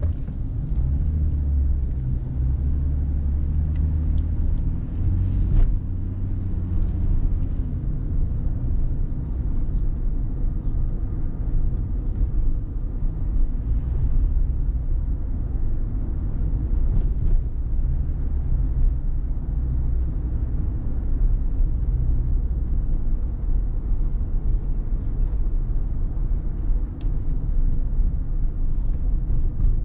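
A car being driven: a steady low rumble of engine and road noise, with a brief knock about five seconds in.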